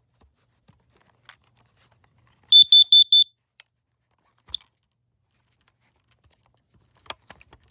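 Smoke alarm's piezo horn sounding as its test button is pressed: a quick run of five loud, high-pitched beeps, about six a second, near the middle, then one more short chirp. A few clicks near the end.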